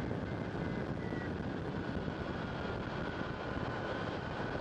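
Airflow rushing past a hang-glider pilot's helmet, picked up by a stereo mic inside the helmet: a steady rush with an unsteady low rumble of buffeting, and a faint thin high whistle through it.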